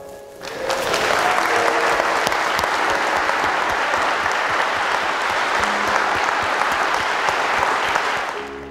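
Wedding guests applauding the couple just introduced as husband and wife. The clapping swells in about half a second in, holds steady, and fades near the end.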